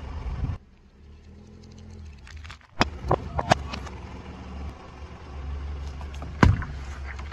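A car tyre rolls onto a cardboard drink carton and bursts it. A sharp crack comes about three seconds in, followed by a couple of smaller crackles, while the car's engine runs low underneath. Another sharp crack comes near the end.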